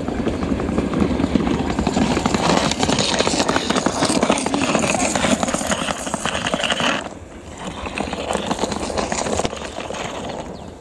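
Passenger train coaches rolling past, the wheels clattering over the rail joints in a dense run of clicks; the noise drops sharply about seven seconds in.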